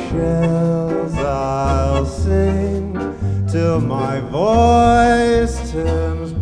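A man singing over a band with bass, sliding up into a long held note a little past the middle.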